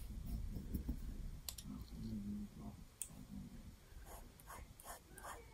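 Faint clicks from handling a glass ink bottle and an automatic lettering pen. Near the end come several quick light taps as the pen's nib dabs ink onto notebook paper.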